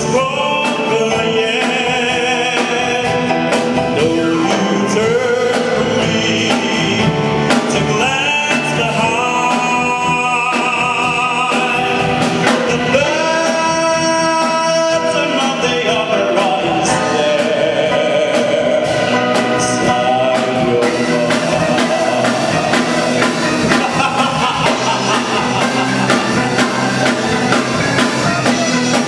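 Live band accompanying a singer in a dramatic Broadway-style duet, with long held notes sung with wide vibrato. The arrangement changes about two-thirds of the way through.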